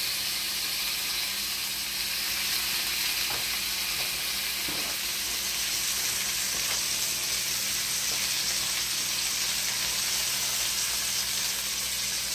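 Blackened chicken breasts sizzling steadily in hot fat in a cast iron skillet.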